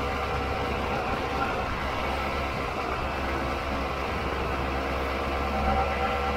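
Honda CRM250's two-stroke single-cylinder engine running at a steady cruising speed, heard from on the bike, mixed with wind and tyre noise on a gravel track.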